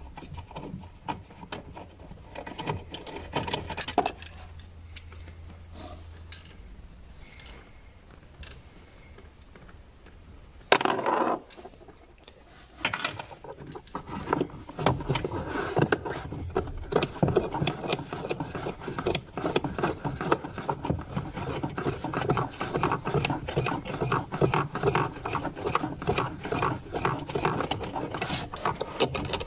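Hands rubbing and scraping against the Renault Twingo's plastic dashboard trim, with scattered clicks and knocks. There is a loud short scrape about eleven seconds in, and dense rubbing and scraping from about thirteen seconds on.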